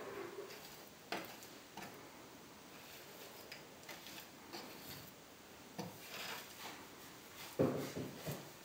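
A narrow pointing trowel scraping and smoothing fresh grout in the joints of gypsum imitation-stone cladding. It makes faint, intermittent rubbing with a few light clicks, and a louder scuff near the end.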